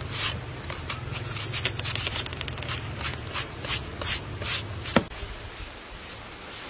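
A hand peeler scraping the skin off a firm green fruit in short, quick strokes, about two a second, with a sharp click about five seconds in. A low steady hum runs underneath and stops at the same point.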